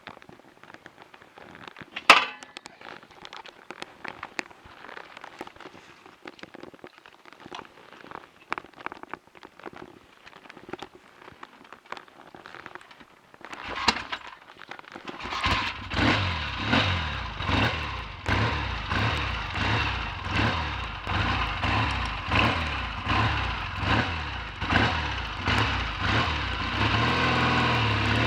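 Scattered clicks and one sharp metallic clink about two seconds in. About halfway through, a Triumph T140V's 750 cc parallel-twin engine starts and runs, its level rising and falling about once a second.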